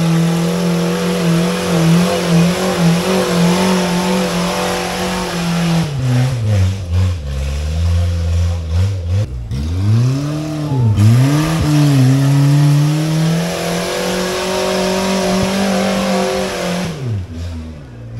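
Off-road 4x4's engine running at high revs, pulling up a muddy hill climb. In the middle the revs drop and climb back several times as the throttle is eased and reapplied, then hold steady before fading out near the end.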